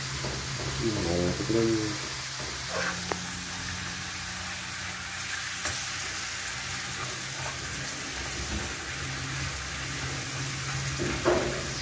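Potato chips deep-frying in hot ghee, a steady sizzle over a low steady hum, as a steel slotted skimmer stirs them and knocks against the pan a few times.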